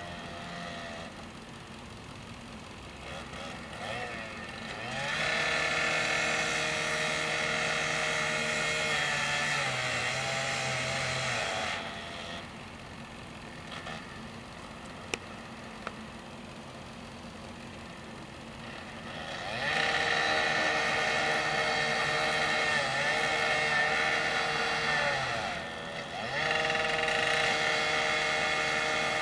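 Engine-driven handheld power saw, likely cutting the tower's steel. It revs up to a steady high-pitched run three times, first about five seconds in, then twice more near the end, and drops back to a lower idle between spells.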